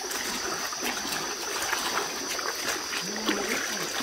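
Shallow river water trickling with small splashes and ticks, over a steady high-pitched drone of night insects.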